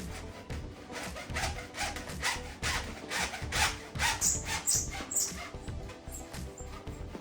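Background music with held tones, over a run of short rasping strokes that come thickest from about a second in to just past the middle.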